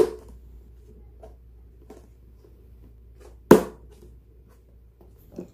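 Lid of a plastic airtight food container being pressed shut: a sharp snap at the start and another about three and a half seconds in, over faint room hum.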